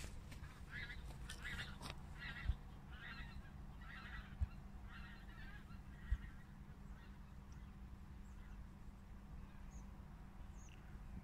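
Honking bird calls repeating about twice a second, fading out after about six seconds, over a steady low rumble. Three short dull thumps are the loudest sounds, and faint high chirps come near the end.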